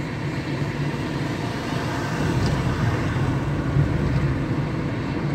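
Steady road and engine noise of a car cruising at highway speed, heard from inside the cabin: a low rumble of tyres and engine that grows a little louder about two seconds in.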